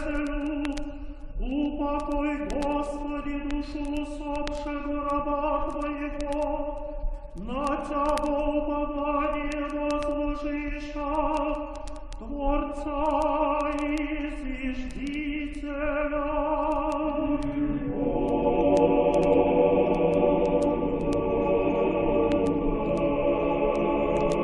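Orthodox liturgical choral chant: voices sing a single line in long held notes, each phrase sliding up into its first note, and about 18 seconds in a full choir enters singing in harmony.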